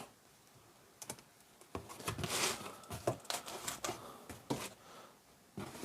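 A parcel's packaging handled by hand: irregular taps, clicks and short rustles, starting about a second in.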